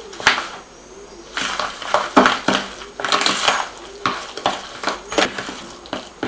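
A metal spoon scraping and knocking against a plastic bowl in quick, irregular strokes as it mashes curd cheese with eggs and sugar into a filling.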